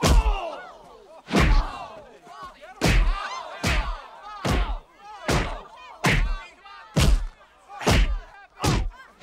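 A fistfight's punch sound effects: about ten hard thwacks, roughly one a second, each followed by a short grunt or cry of pain.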